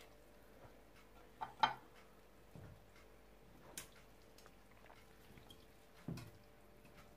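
A few faint, scattered clinks and knocks of a metal utensil against a stainless steel pot as boiled mutton is lifted out of the broth, with light dripping; the loudest pair of clinks comes about a second and a half in.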